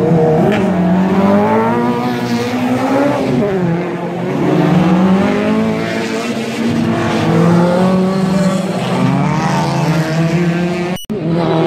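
Race car engines revving hard as cars drive past one after another on a street circuit, the pitch climbing and falling repeatedly with throttle and gear changes. The sound cuts out abruptly for a moment near the end.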